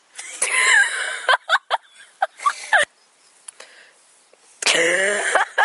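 Girls bursting into laughter: a long high-pitched shriek of laughter, then short gasping giggles. After a lull of about a second and a half there is another loud burst of laughter near the end.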